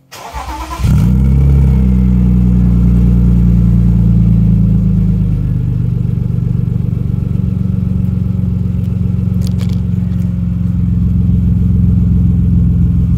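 Car engine cranked by the starter and catching about a second in, then idling cold through a newly fitted Super Sprint rear exhaust with twin tailpipes. The idle eases down slightly about five seconds in.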